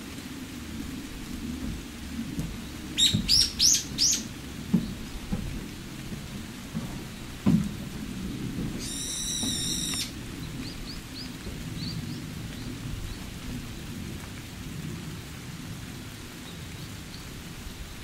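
Wind rumbling on the microphone, with small birds calling over it: a quick run of four rising chirps about three seconds in, a harsher call lasting about a second near the middle, then faint short chirps. A single thump comes shortly before the middle call.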